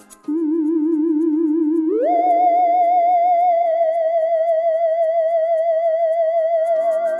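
Background music: a single held note with a steady wavering vibrato, gliding up in pitch about two seconds in and then held, in a theremin-like tone.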